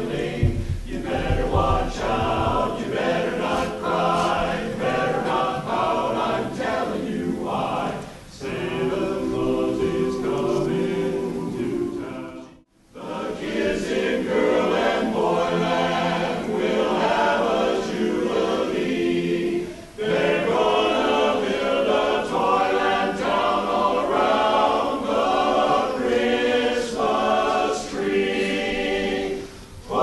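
Men's barbershop chorus singing a cappella in close harmony, in phrases with short breaks between them. The sound drops out completely for a moment a little before halfway.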